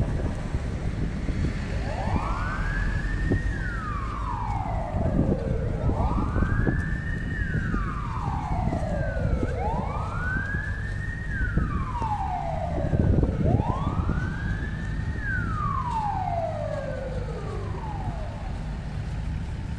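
Emergency vehicle siren in a slow wail, rising and falling four times at about four seconds a cycle, starting about two seconds in and dying away near the end, over a steady low rumble of street traffic.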